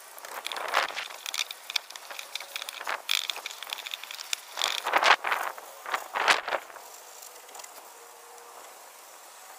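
Trigger spray bottle spritzing degreaser in short hissing bursts onto a plastic engine cover, mixed with a cloth rubbing over the plastic. The sound dies down to a faint hush about two-thirds of the way through.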